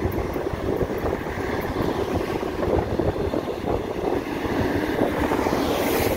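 Wind buffeting the microphone of a moving electric motorcycle in city traffic, a steady fluttering rush. Near the end a large truck passes close alongside, adding a rising hiss.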